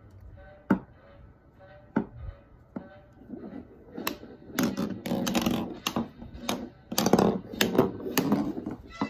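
Hard plastic roly-poly toy figures knocked and rocked on a hardwood floor: a few single knocks, then a quick run of clacking and tapping from about four seconds in.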